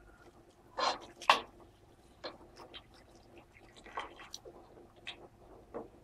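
A utensil stirring milk-and-flour béchamel in a pot, scraping and knocking against the pan to keep the sauce from going lumpy as it thickens. There are two louder knocks about a second in, then lighter scattered scrapes and clicks.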